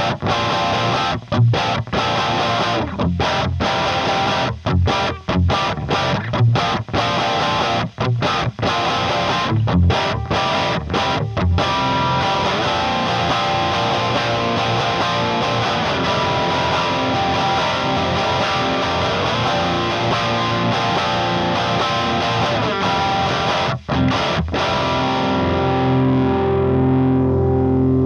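Electric guitar played through a Neural Amp Modeler capture of a Marshall 800 head's lead channel with an Orange 2x12 cabinet impulse response and no pedals, giving a distorted amp tone. Choppy riffing with many short stops through the first half, then sustained ringing chords and notes.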